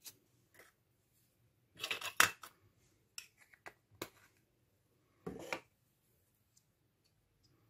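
A plastic eyeshadow compact and makeup brush being handled: scattered clicks and taps of the plastic case and lid. The loudest comes about two seconds in, a few quicker clicks follow, and there is a short brushing rustle near the end.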